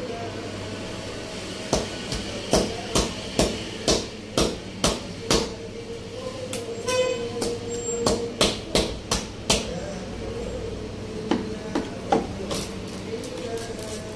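Butcher's blade striking a large leg of meat and its bone on a wooden block: sharp chopping blows about two a second, in three runs, over a steady hum.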